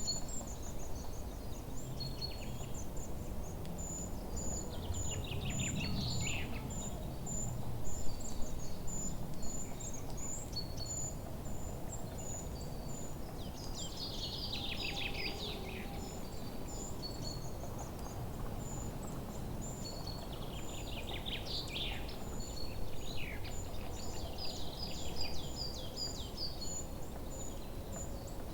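Forest birdsong over a steady low rustling background: short high chirps repeat evenly throughout, and three times a bird sings a fast trill that falls in pitch, about every seven or eight seconds. A brief louder burst of low noise comes about eight seconds in.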